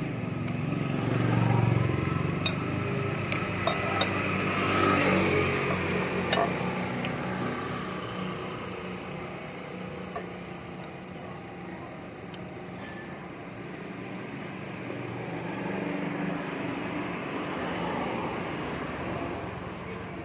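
Motor vehicle engine noise that swells and fades twice, as traffic passes, with a few sharp clicks in the first six seconds.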